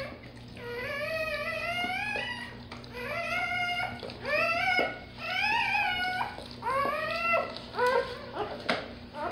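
Newborn Labrador retriever puppy crying: a run of about eight high squeals, each bending up and then down in pitch, the longest near the start.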